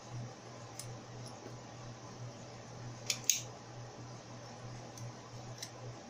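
Small metallic clicks from the parts of an American 1100 padlock being handled and fitted back together: a few light ticks and a sharp pair of clicks about three seconds in, over a steady low hum.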